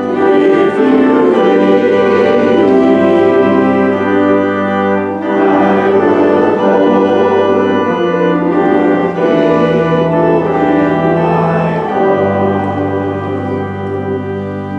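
Organ playing a hymn in long sustained chords over held bass notes, the chords changing every few seconds.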